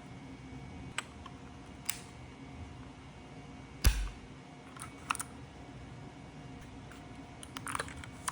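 A handful of separate keystrokes on a Hexgears X1 Pro mechanical keyboard with Sky Blue switches: sharp clicks a second or more apart, the loudest, about four seconds in, with a dull knock under it, and a quick run of clicks near the end.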